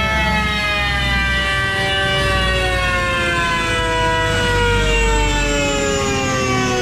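Nissan GT-R R35 on a chassis dyno winding down after a power run: a loud whine with many overtones slowly falls in pitch over a steady low rumble.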